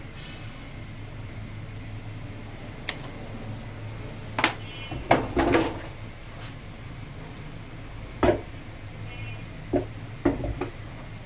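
Cookware being handled: a few sharp knocks and clanks, loudest about five seconds in, over a steady low hum from the induction cooktop.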